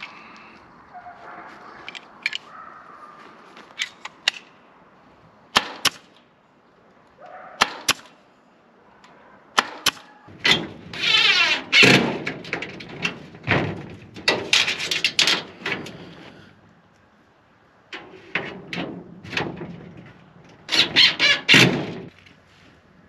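Power drill driving self-tapping screws through reclaimed corrugated metal roofing, in two loud spells of motor whine and rattling metal, the second a quick run of short bursts near the end. A few sharp clicks come before them.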